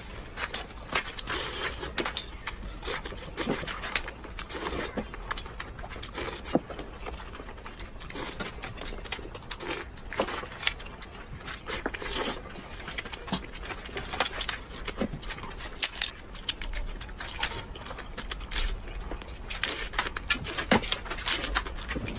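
A person eating cooked crab, chewing and sucking on the shell pieces: a steady run of irregular wet clicks, smacks and small crunches.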